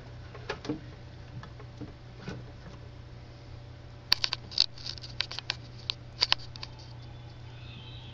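Irregular short, sharp clicks and ticks over a steady low hum, a few scattered at first, then a quick cluster of them about four seconds in that lasts a couple of seconds.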